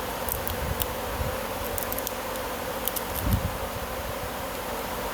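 A steady buzzing hum, as from shop equipment, with a few light clicks and a soft thump about three seconds in from handling the cable and its cold-shrink termination kit.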